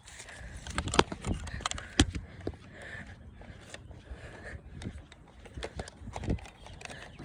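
Footsteps and rustling of someone moving on foot, with irregular sharp knocks; the loudest two come about one and two seconds in.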